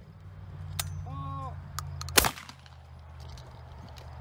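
A short shouted call of "pull" about a second in, then a single loud shotgun shot at a trap target about two seconds in, with a brief ringing tail.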